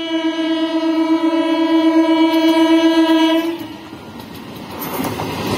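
Electric multiple-unit train's horn sounding one long steady blast of about three and a half seconds. Near the end, the rumble of the approaching train rises.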